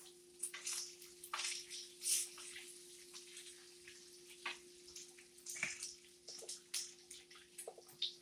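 Sausage and bacon frying in a pan: an irregular sizzling crackle with sharp pops of hot grease.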